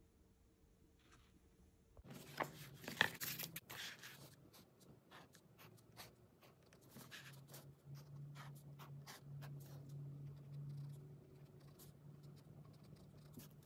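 A 0.3 mm fine-liner pen scratching on sketchbook paper as small outlines are drawn: many short, quiet strokes. A cluster of sharp taps and handling sounds comes about two seconds in.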